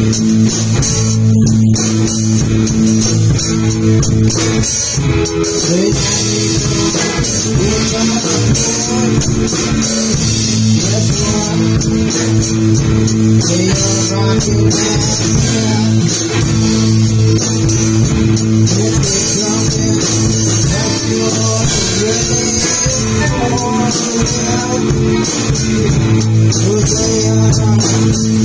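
Rock band jamming live: two electric guitars and a drum kit playing steadily and loudly, with a singer's voice over a microphone.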